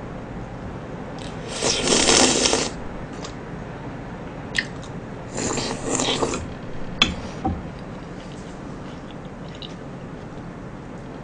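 Shaved ice being spooned and eaten close to the microphone: two loud noisy stretches of about a second each, with a few short clicks of the spoon in between.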